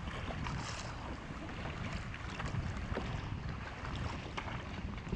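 Wind rumbling on the microphone over water lapping and splashing around a paddled sit-on-top kayak, with scattered small splashes from the paddle strokes and the choppy waves.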